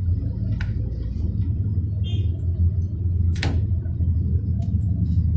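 Fingers working a motherboard's CMOS coin-cell battery loose from its holder: a few sharp clicks, the loudest about three and a half seconds in, over a steady low hum.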